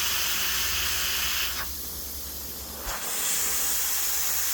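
Air hissing steadily out of a reamed puncture hole in an inflated mower tire, the sign of a tire that is actively losing air. The hiss drops away for about a second in the middle, then returns.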